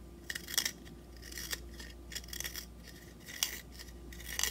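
Pencil being twisted by hand in a small handheld manual pencil sharpener, the blade shaving the wood in a series of short, irregular scraping rasps.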